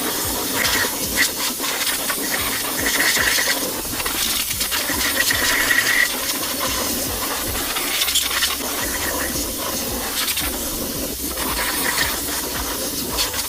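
Air blower hissing steadily as it blows sanding dust off a freshly scuffed car wheel before painting.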